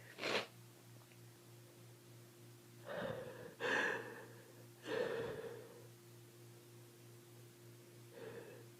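A person with a head cold breathing heavily between sneezes: a short breath just after a sneeze, then three soft gasping breaths about three to five and a half seconds in, and a faint one near the end.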